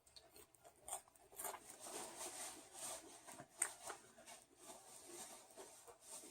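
Eating sounds close to the microphone: crinkling and rustling, as of a fast-food wrapper or bag, along with chewing and a few sharp clicks.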